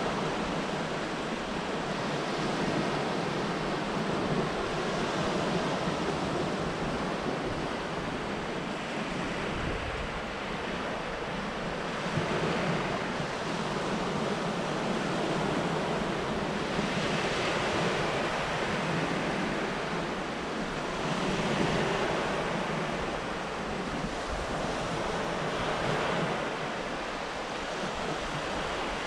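Small waves breaking and washing up a sandy shore in gentle surf, swelling about every four to five seconds, with wind noise on the microphone.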